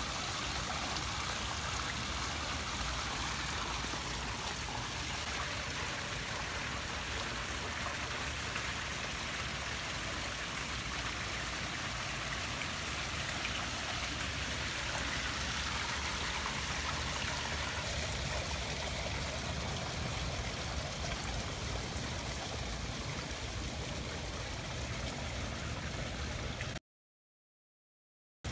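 Fountain water splashing and pouring steadily into its pool. It cuts off suddenly near the end, leaving a second or two of silence.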